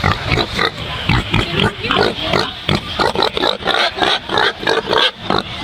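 Pig grunting: a quick, irregular string of short grunts that goes on without pause.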